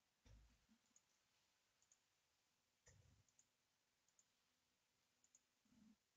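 Near silence with a few faint computer mouse clicks.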